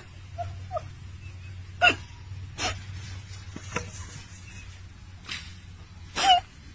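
Small dog barking in single sharp yaps, about five spaced irregularly, the last and loudest near the end.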